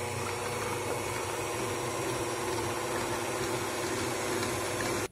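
Electric stand mixer (white tilt-head, 300 W) running steadily on low speed, its motor humming as the wire whisk beats a cocoa pastry-cream base while hot milk is poured in.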